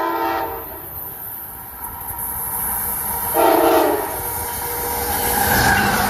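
An approaching Amtrak train's horn sounds two short blasts about three and a half seconds apart, the second louder. Between and after the blasts, the train's running noise grows as it draws near.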